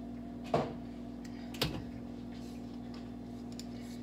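Two light knocks about a second apart from things being handled in a kitchen, over a steady low hum.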